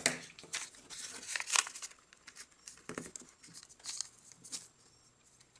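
Sheet of origami paper being folded and creased by hand: irregular rustles and crinkles, busiest in the first two seconds and growing faint toward the end.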